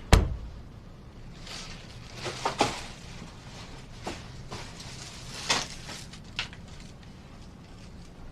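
A sharp click right at the start, then scattered soft steps and rustles at an uneven pace.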